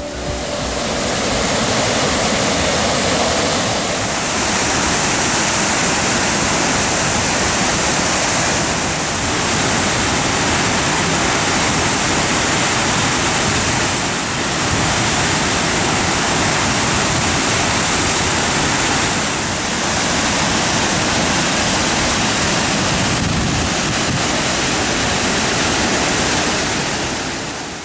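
Flooded river pouring over a waterfall and rushing down its gorge, its muddy water in spate: a loud, steady rush of water with slight dips in level every few seconds, fading out at the end.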